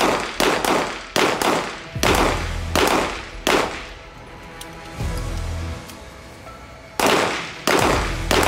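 Semi-automatic pistol shots fired in quick succession, about half a second to a second apart, each with a short ringing echo. About three and a half seconds in, the firing pauses for roughly three seconds, then starts again.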